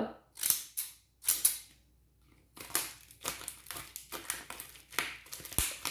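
Irregular clicks and crackling rustles from handling a set of decorative-edge craft scissors and their packaging. A few separate clicks come first, then a denser run from about halfway on.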